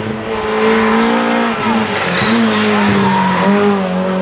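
Rally car engine held at high revs while the car is driven hard through a bend on a tarmac stage, the engine note dipping briefly twice and picking up again, with tyre noise over it.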